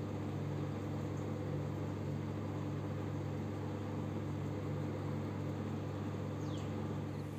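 Steady low electrical-style hum with a faint hiss underneath, unchanging throughout.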